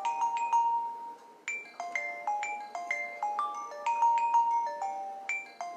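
Mobile phone ringing with a marimba-style ringtone, signalling an incoming call: a repeating melody of short, bright mallet-like notes, with a brief break between phrases about a second and a half in.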